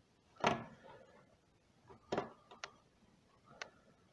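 Small screwdriver and little screws being worked into a 3D printer's motherboard mount: scattered light clicks and taps of metal on metal and plastic. There is a louder knock about half a second in and another about two seconds in, then a couple of sharp ticks.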